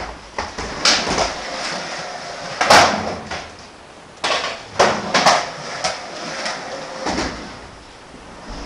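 Skateboard riding a plywood ramp and concrete floor: wheels rolling, with about six sharp clacks and slaps of the board hitting the ramp and floor.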